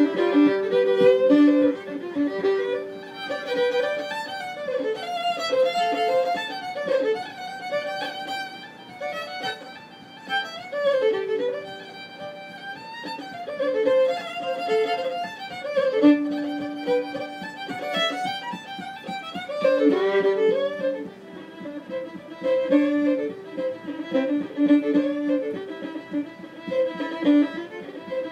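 Fiddle playing an Irish reel at an unhurried tempo, with a quick running melody over long held lower notes.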